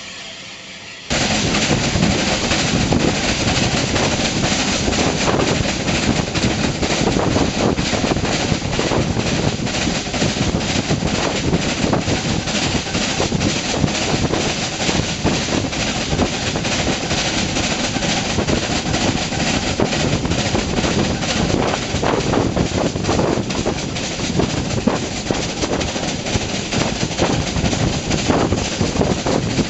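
Steady loud running noise of a moving train heard from an open carriage window: wheels on the rails mixed with rushing air on the microphone, starting suddenly about a second in.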